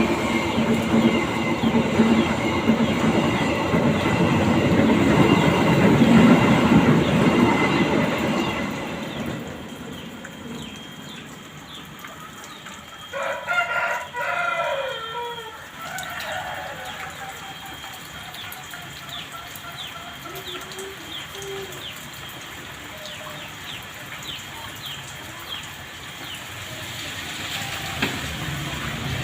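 A train passing with a heavy rumble that dies away after about nine seconds. Then a rooster crows once, about halfway through, against a steady hiss of rain and faint small bird chirps.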